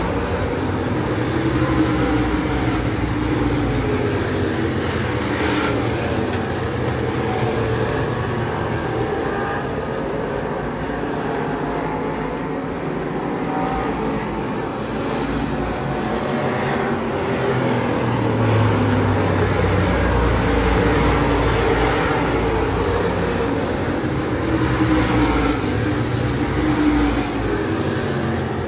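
Several dirt-track stock cars racing around the oval, their engines running hard in a continuous, loud drone that swells and fades as the pack comes past and moves away.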